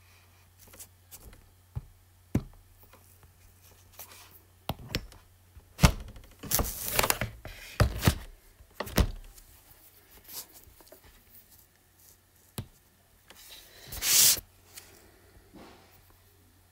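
Handling noises: scattered taps and knocks, a cluster of louder knocks and short rustles about six to nine seconds in, and another rustle near the end, over a low steady hum.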